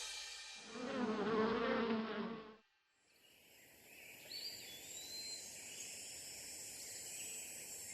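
The last note of a children's song fades out, and after a brief silence a steady outdoor ambience of insects buzzing and chirping sets in, with a faint high whistle in the middle.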